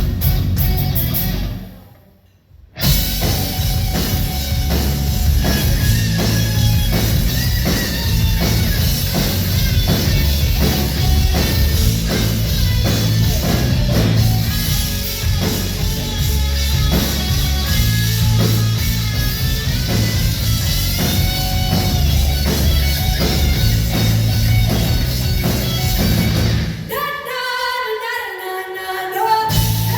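A live rock power trio plays heavy rock: electric guitar, bass and drums with a sung lead vocal. About two seconds in, the band stops dead for a moment, then crashes back in. Near the end the bass and drums drop out for a couple of seconds, leaving only the higher parts.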